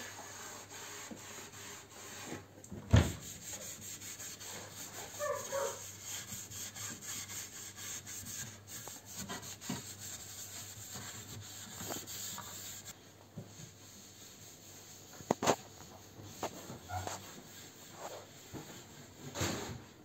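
Cloth wiping and rubbing against the inside of a kitchen wall cabinet. A sharp knock comes about three seconds in, and a lighter one about fifteen seconds in.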